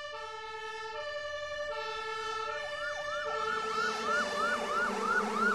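Emergency vehicle sirens: a high-low two-tone siren stepping between pitches, joined about two and a half seconds in by a fast rising-and-falling wail, growing louder.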